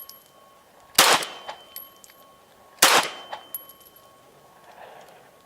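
Two shots from a CZ 75 B 9mm pistol, fired about two seconds apart, each with a short echo and a faint ringing tone trailing after it.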